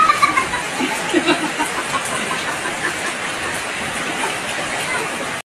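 Steady hiss-like noise with a child's high voice briefly at the start and again about a second in; the sound cuts off abruptly just before the end.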